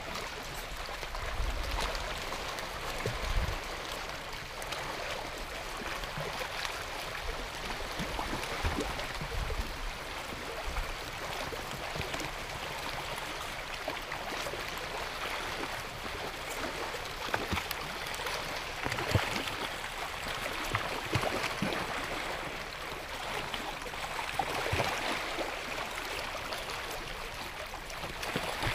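Shallow seawater lapping and gurgling among shoreline rocks: a steady wash dotted with small splashes and clicks, and a few low rumbles in the first ten seconds.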